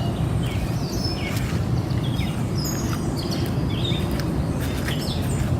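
Birds chirping: many short, high chirps and quick falling notes scattered throughout, over a steady low rumble of outdoor background noise.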